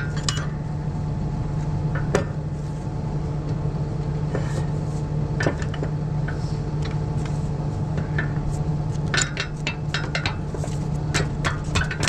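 Tractor engine idling steadily, with metal hand tools clinking and tapping against the disc's steel frame every second or two.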